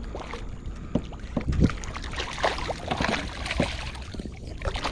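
Splashing water as a hooked redfish thrashes at the surface beside a kayak, in irregular splashes with the loudest about a second and a half in.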